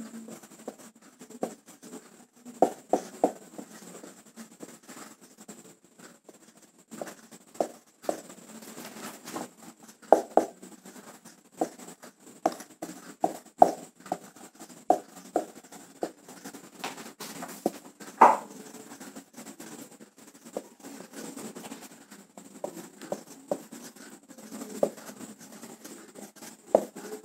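Marker pen writing on a whiteboard: short, irregular squeaks and taps of the felt tip as the letters are formed, with a sharper squeak about eighteen seconds in.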